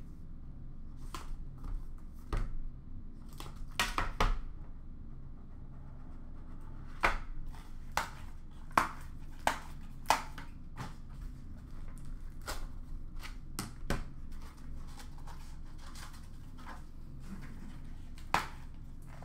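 Trading-card box and packs being handled and opened: scattered sharp taps, clicks and crinkles of cardboard and wrappers set down on a counter, over a steady low hum.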